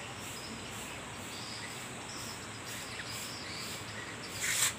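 Faint, steady insect chirping with an even pulsing, and a brief rustle near the end.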